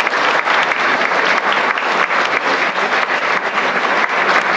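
Audience applauding in a hall: many people clapping steadily.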